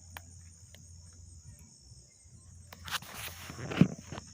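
Crickets chirring steadily and high, with scattered sharp crackles from a freshly lit bonfire of dry wood, and a louder rustle and thump about three to four seconds in.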